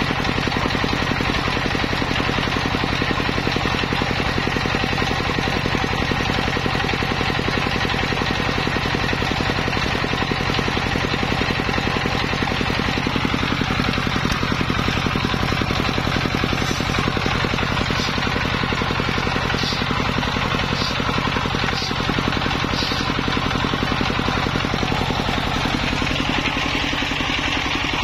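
Homemade belt-driven circular table saw running steadily while cutting giant bamboo (petung), a constant mechanical drone with a few faint light ticks in the second half.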